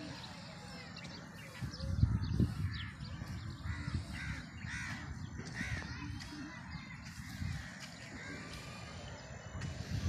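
Crows cawing, a series of short calls through the middle of the stretch, over a low rumble that is loudest about two seconds in.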